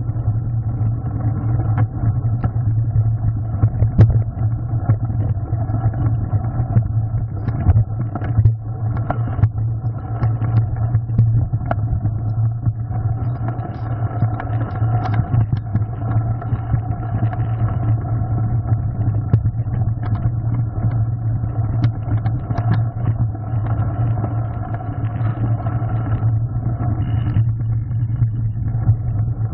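Mountain bike riding noise picked up by a handlebar-mounted camera: a steady rumble of tyres on the gravel trail and frame vibration, with scattered knocks and rattles as the bike hits stones and bumps.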